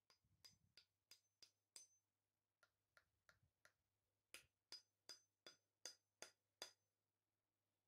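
A run of about eighteen sharp wooden knocks, each with a faint metallic ring, coming about three a second in three bursts, the last burst the loudest. It is the butt of a new timber handle being rapped down to drive a 20 oz cast claw-hammer head tight onto it.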